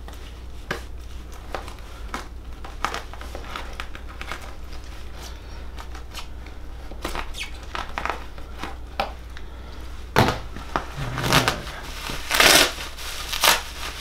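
Packing tape being picked at and torn off the end of a PVC pipe shipping tube: small scrapes and clicks at first, then several louder rips and plastic crinkles in the last four seconds as the end comes open.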